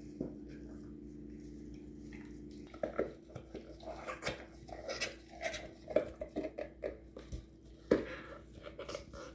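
A steady low hum, then from about three seconds in a dog chewing something on the floor: irregular clicks and crunches of its mouth and teeth.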